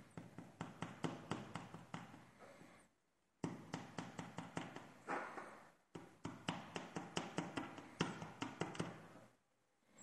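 Small metal lock parts from a disassembled pin-tumbler cylinder clicking and rattling as they are handled, in three runs of rapid clicks with brief pauses between.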